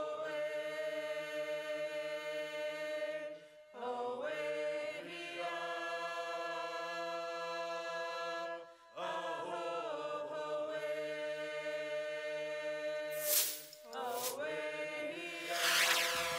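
Chant-like vocal music: four long held phrases, each a few seconds long with a short breath-like break between them. A brief hissing whoosh comes twice near the end.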